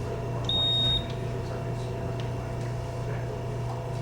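A single short high-pitched electronic beep about half a second in, over a steady low electrical hum.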